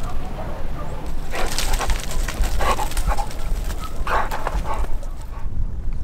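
A large dog vocalising in three short bursts, whining and barking.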